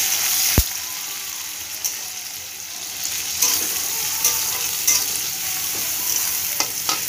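Sliced onions and green chillies sizzling in hot oil with nigella seeds in a metal pan, stirred with a spatula that scrapes and taps against the pan. One sharp tap about half a second in, then scattered lighter clicks over the steady sizzle.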